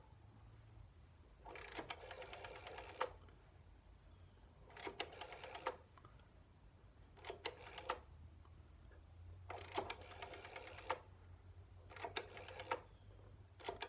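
Rotary phone dial being turned and released, one digit at a time: each release lets the dial spin back with a quick run of clicks. Five digits are dialled with short pauses between them, and a sixth begins right at the end.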